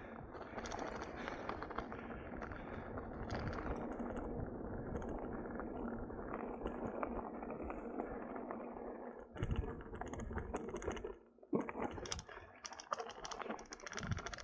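Mountain bike rolling fast down a gravel road: tyres on loose gravel with a dense, steady patter of small clicks and rattles from stones and the bike. Briefly quieter about eleven seconds in.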